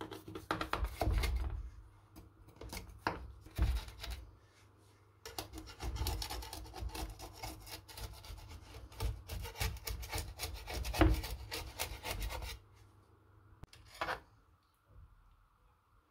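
A knife saws and scrapes through the crisp baked crust of a cornmeal and spinach pie (lakror), rasping along the bottom of the metal baking pan in repeated strokes. A single sharper knock comes near the end.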